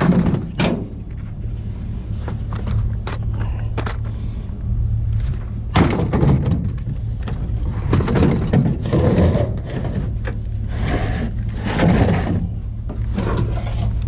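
Vehicle engine idling steadily under irregular knocks, clunks and clatter of scrap metal being handled.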